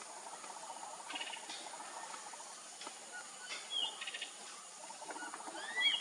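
Forest birds calling: short rapid trills and two brief sharp whistled calls, the louder one near the end with a rising glide, over a steady high-pitched insect hum.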